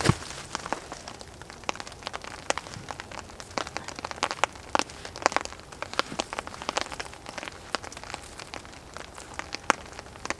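Rain falling, heard as many irregular sharp ticks of drops striking close by.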